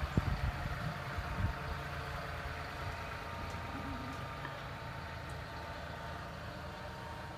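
Massey Ferguson 4707 tractor's diesel engine running steadily at low speed while towing another tractor, with a few knocks in the first second and a half.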